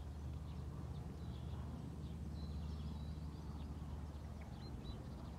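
Wind buffeting the microphone in a steady low rumble, with small birds chirping in short high calls above it.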